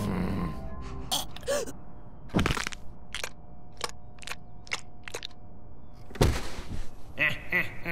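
Cartoon sound effects: a run of about half a dozen sharp cracks over a faint held music tone, with two heavier hits, one about two and a half seconds in and one about six seconds in. A voice comes in near the end.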